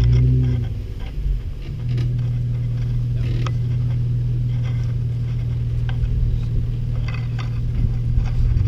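Jeep engine running at a low, steady idle-like pace as the vehicle crawls down a rocky trail, its pitch shifting briefly in the first couple of seconds and then holding steady. A few sharp knocks are heard over it.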